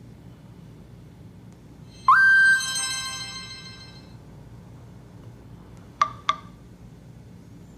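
Nokia E90's loudspeaker playing short alert tones. About two seconds in, a tone slides up and holds, then rings out with a shimmering decay. Near the end come two quick beeps.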